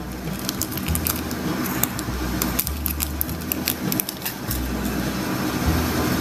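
A small clear plastic packet crinkling and rustling as it is handled, mostly in the first couple of seconds, over background music with a low bass line.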